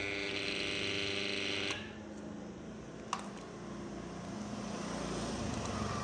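Repaired spin-dryer motor from a Polytron washing machine running on the bench with a steady electrical hum, now running smoothly. The hum stops abruptly with a click a little under two seconds in, and a second click follows about a second later.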